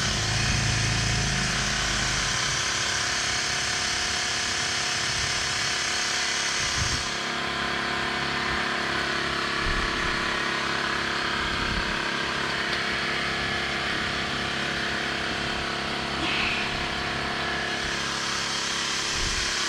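A small electric motor running steadily, with a constant hum. About seven seconds in, its high hiss drops away.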